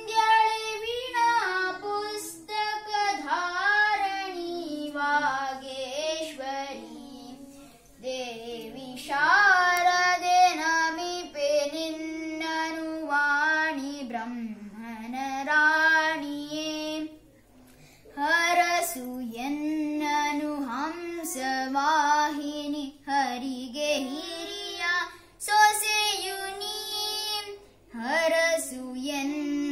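A child singing a devotional song to Sharada (Saraswati) unaccompanied, a single high voice carrying a melody in long phrases with short breaths between them.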